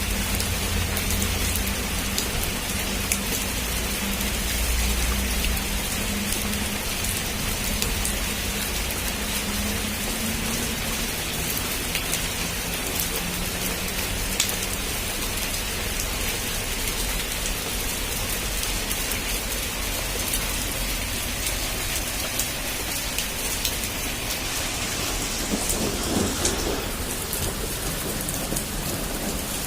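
Heavy rain falling steadily, with low rumbles of thunder, strongest in the first few seconds and again near the end.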